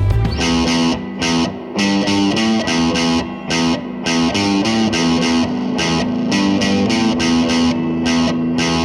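Background music: a distorted electric guitar playing a rhythmic line with a steady beat; the low bass drops out at the start and comes back just after.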